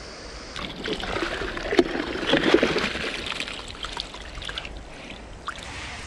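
Water splashing and sloshing close by for a few seconds, over the steady sound of a river running.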